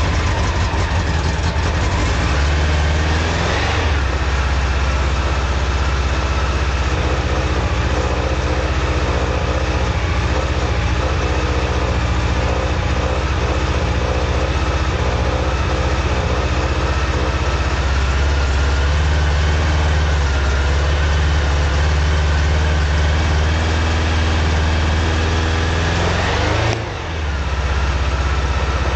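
Honda CB750's air-cooled inline-four engine idling steadily while warming up after a cold start, its speed rising briefly a few seconds in and again near the end.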